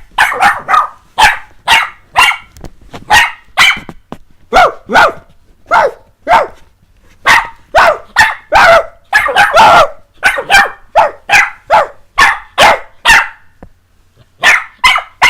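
Puppy barking repeatedly in play, short sharp barks about two a second, with a pause of about a second near the end.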